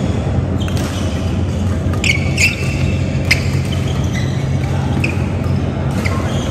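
Badminton doubles rally: several sharp pops of rackets striking the shuttlecock, over a steady low hum in a large hall.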